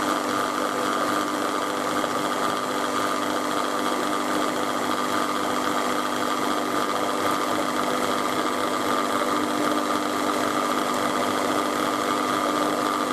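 Electric mixer running steadily at low speed, its twin beaters whisking egg-and-sugar batter in a stainless steel bowl. It gives an even motor hum that holds one pitch throughout.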